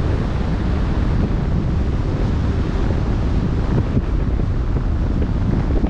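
Steady wind buffeting the microphone over the rush of open-sea waves. It is a loud, unbroken rumble, heaviest in the low end.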